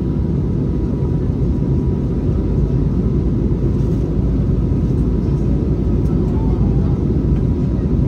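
Steady low rumble of an airliner's engines heard inside the passenger cabin, with a faint steady tone above it.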